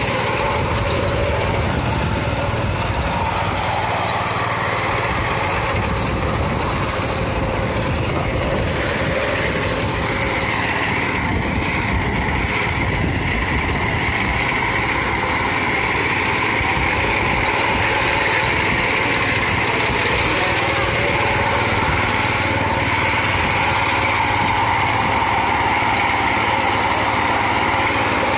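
The small petrol engine of a KisanKraft walk-behind paddy reaper running steadily, driving the cutter bar through standing rice.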